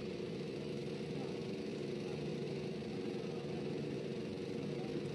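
Passenger ship's engines running with a steady, even drone as it comes alongside the quay to berth.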